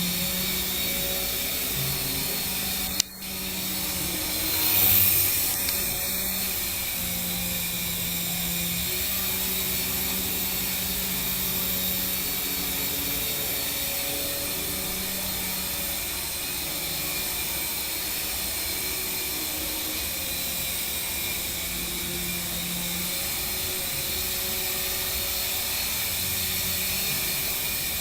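Small radio-controlled helicopter hovering, its electric motors and rotors making a steady high whine. There is a sharp click about three seconds in and a brief swell in the whine soon after.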